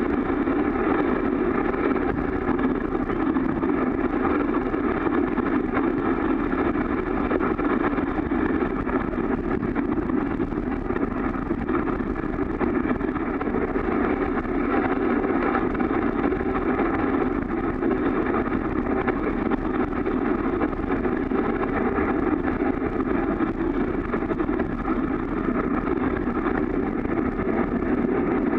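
Steady rushing noise of a four-dog husky sled moving at speed over a snowy trail: the sled running over the snow, with wind on the microphone, muffled inside the camera's waterproof case.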